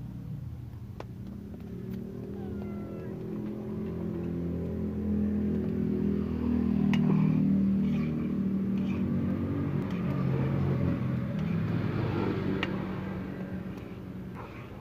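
A motor vehicle's engine runs nearby, growing louder over several seconds and then fading. A few sharp clicks of the metal ladle against the wok sound over it.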